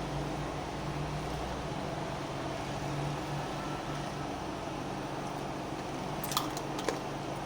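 A steady low mechanical hum, with two light clicks near the end.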